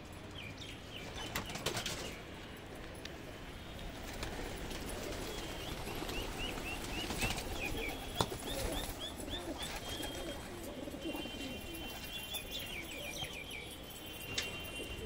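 A flock of domestic pigeons with their wings flapping, including a few sharp wing claps in the first two seconds, and low cooing through the second half as they feed. Short, high chirps of other birds come in small clusters now and then.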